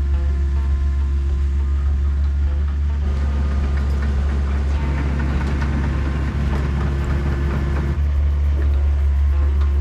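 Motor vehicle engine running with a steady low drone.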